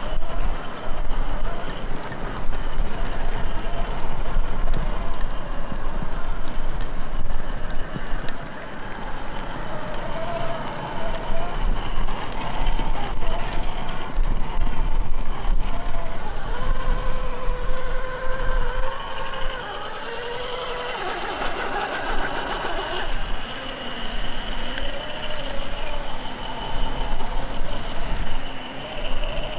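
Whine of an RC rock crawler's sensored brushless motor and gear drivetrain (Traxxas TRX-4 Sport with a HobbyWing XeRun system), rising and falling in pitch with the throttle as the truck crawls over rocks, over a steady low rumble.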